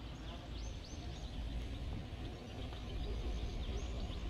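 Small birds chirping in many short, high calls over a steady low rumble.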